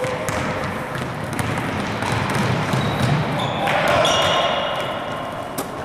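Basketball game in a gym: a ball bouncing on the court with a few sharp knocks, amid a steady din of players' and spectators' voices, with louder calls about two-thirds of the way in.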